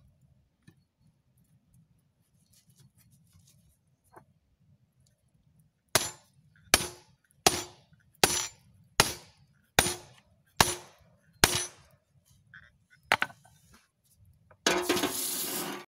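A hand hammer strikes the steel top tool of a blacksmith's guillotine eight times, each a sharp metallic clang with a short ring, a little under a second apart, driving the tool into a red-hot steel bar. Near the end comes a dense burst of noise lasting about a second.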